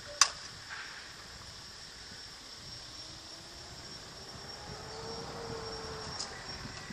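A Resmondo slowpitch softball bat hits a softball once, a fraction of a second in, with a sharp crack and a brief high ring. A much fainter click comes near the end.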